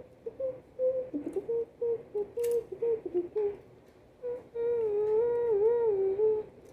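A person humming a tune with the mouth closed: a string of short notes, then one longer wavering note about two-thirds of the way through. A few faint clicks of plastic toy parts being handled.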